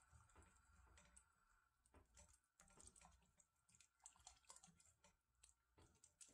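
Near silence, with faint, irregular small clicks scattered throughout.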